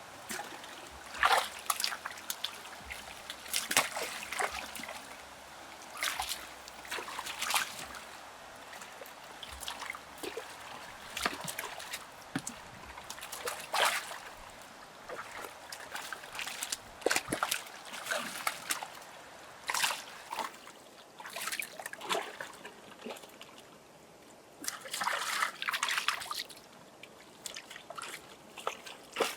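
Water splashing and trickling in irregular short splashes, some louder than others, with no steady rhythm.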